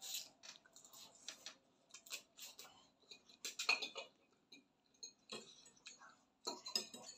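Forks clinking and scraping against plates as spaghetti is twirled and eaten, in scattered short taps with a louder cluster about three and a half seconds in.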